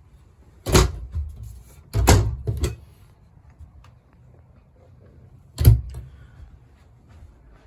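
Closet doors in a camper bedroom being opened and shut: a knock about a second in, two or three more around two seconds in, and a last, sharpest one near six seconds, with quiet room tone between.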